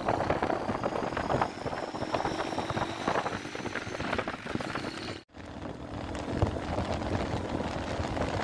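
Wind rushing over the microphone and road noise from a moving motorcycle, with the engine's faint steady hum underneath. The sound cuts out briefly about five seconds in.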